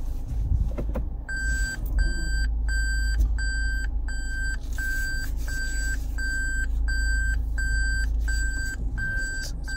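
Toyota Land Cruiser Prado's in-cabin reversing beeper sounding a steady series of short, even beeps, a little under two a second, starting about a second in: the car is in reverse gear. A low cabin rumble runs under it.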